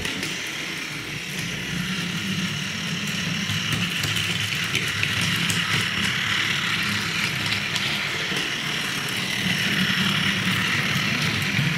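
Battery-powered Plarail toy train (Thomas & Friends James) running on plastic track: a steady whir of its small motor and gears with faint clicks from the wheels.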